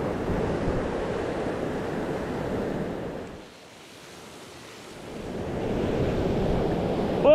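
Ocean surf washing against a rocky shore, a steady rushing wash that dies away about halfway through and then builds back up as the next wave comes in.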